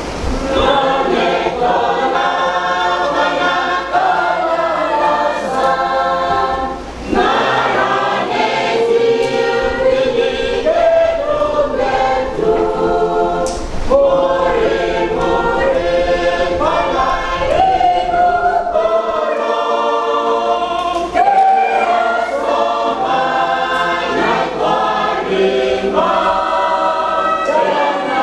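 Church choir singing a hymn, in phrases broken by brief pauses for breath.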